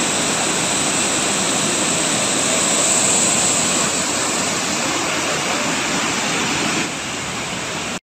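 Water rushing steadily over a rocky waterfall cascade. It drops a little in level about seven seconds in.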